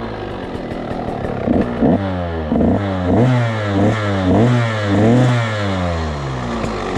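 Two-stroke engine fitted with an FMF Shorty exhaust silencer, idling, then blipped about six times in quick succession with the pitch rising and falling, then settling back to idle. Loud and raspy through the short pipe.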